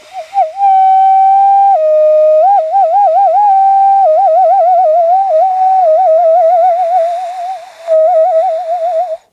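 Whistling: one clear tone that moves between a few held pitches and breaks into fast warbling trills, with the trills quickening in the second half. It breaks off briefly near the end, resumes, and then stops abruptly.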